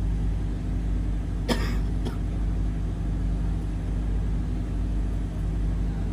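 Steady low machinery hum from the ship, with a short sharp cough-like sound about one and a half seconds in and a fainter click half a second later.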